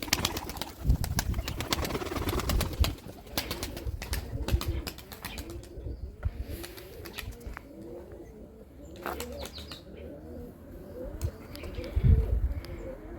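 Turkish Takla pigeons flapping and clattering their wings for the first few seconds, then cooing repeatedly.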